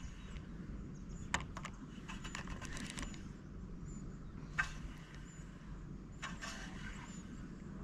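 Faint scattered clicks and ticks from a spinning rod and reel being handled while a lure is worked, a cluster of them about two to three seconds in, over a low steady rumble.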